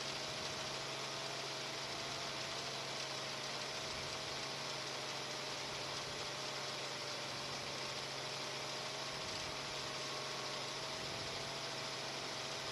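Steady helicopter cabin noise picked up through the crew's intercom: a constant hiss with a faint, slightly wavering whine and a low hum. No fireworks bangs are heard.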